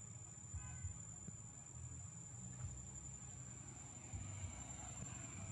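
Steady high-pitched insect drone over a faint low rumble, with a brief faint squeak about half a second in.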